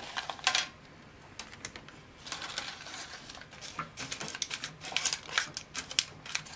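Baking paper crinkling and crackling as fingers press it into a 15 cm sponge-cake tin to line it, in clusters of sharp, crisp clicks and taps.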